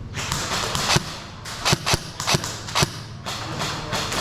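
Airsoft guns firing in close quarters: a string of sharp, irregularly spaced single shots, about five loud cracks between one and three seconds in, with shuffling movement noise before them.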